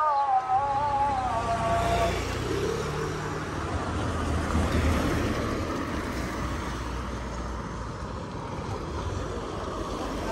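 Cars driving past on a road, with engine and tyre noise that rises and falls as each one goes by. A tune dies away in the first two seconds.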